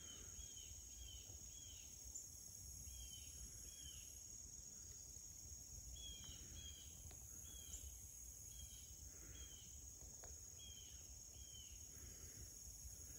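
Near silence: faint outdoor ambience with short, high chirps repeating about every half second in loose runs.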